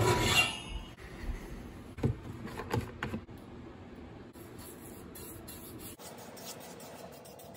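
Cast iron pan scraping and clattering on a metal oven rack, followed by a few light knocks. Near the end, faint, quick strokes of a brush spreading oil in the pan.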